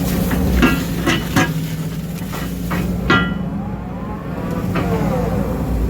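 Case CX210D excavator's diesel engine running steadily under digging load, with sharp metallic clanks that ring briefly: three in quick succession in the first second and a half, and another about three seconds in, as the ditch bucket works.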